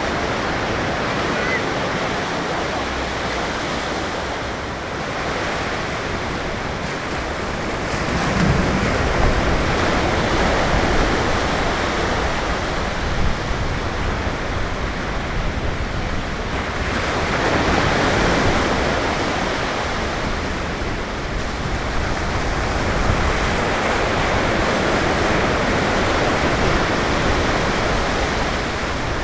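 Ocean surf breaking on the beach: a continuous wash of noise that swells louder as bigger waves break, about eight seconds in and again about seventeen seconds in.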